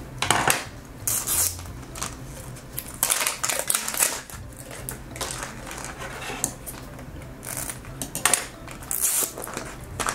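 Zuru 5 Surprise Mini Brands capsule being unwrapped by hand: its printed wrapper torn off along the tear strip in short rustling, tearing bursts, then the hard plastic shell clicking as it is gripped and pried at its seam.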